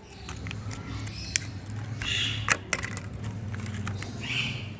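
Thin plastic jelly cups being handled: lids peeled back and cups squeezed, with crinkling and a few sharp clicks, the loudest two close together a little past halfway. A steady low hum runs underneath.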